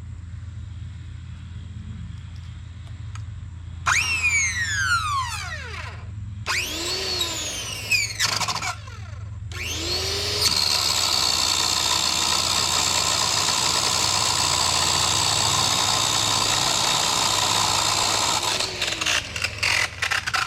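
Small chainsaw triggered in three short bursts whose whine sweeps up and dies away, then held at full speed for about eight seconds before it is let off and stutters down. A low steady hum lies under it.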